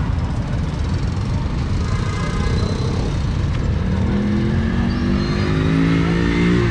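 Road traffic rumbling, with one vehicle engine coming up from about four seconds in, its pitch rising steadily as it accelerates.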